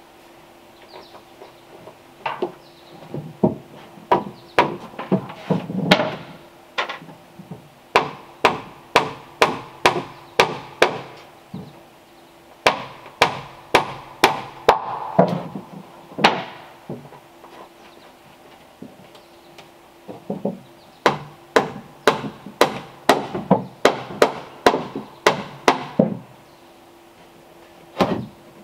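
Hammering on wood: runs of sharp blows, a few a second, broken by short pauses.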